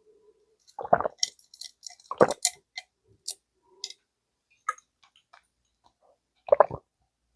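Close-miked eating sounds of Korean pork-bone stew (gamjatang): chewing with wet mouth clicks and smacks, with three louder mouthfuls about a second in, a little after two seconds, and near the end.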